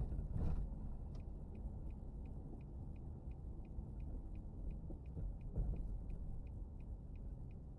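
Low rumble of a car rolling slowly down a street, heard from inside, with a couple of dull thumps, the loudest right at the start. About a second in, a turn-signal indicator starts ticking evenly, about three ticks a second.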